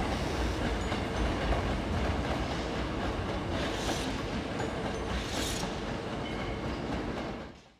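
Hankyu 8000 series electric train running on the rails: a steady wheel-and-track rumble with a few swells of clatter, fading out near the end.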